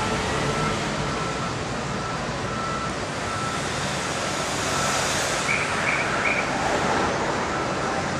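City street traffic noise with a vehicle's reversing alarm beeping about once a second. Traffic swells around five seconds in, and three short higher beeps come just after.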